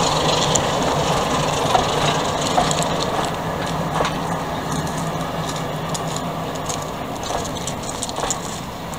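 Class 33 diesel locomotive running steadily as it pulls away, its engine note fading out about seven seconds in, while the passenger coaches roll past with scattered clicks of wheels over rail joints.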